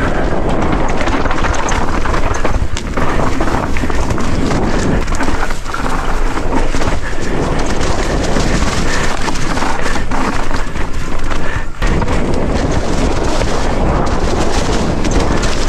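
Mountain bike descending a leaf-covered dirt and rock trail: a loud, steady rush of wind buffeting the on-bike microphone, mixed with tyre noise over dirt and leaves and occasional knocks over bumps.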